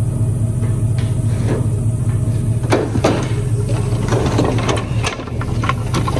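An idling truck engine hums steadily under scraping and knocking from a large cardboard box being slid across a wooden pallet and the trailer floor. The scrapes and knocks come mostly in the second half.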